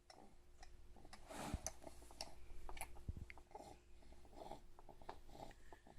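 A seven-month-old baby making faint mouth sounds: scattered clicks and smacks, with a few short soft vocal sounds in the second half.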